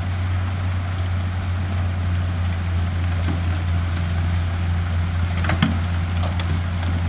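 Heavy earthmoving machine's diesel engine running steadily with a low hum, with one short sharp knock about five and a half seconds in.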